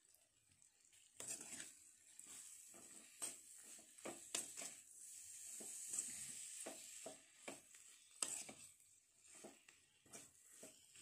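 A steel ladle stirring fried brinjal (eggplant) pieces in a hot pan: repeated light scrapes and clicks against the pan over a faint sizzle.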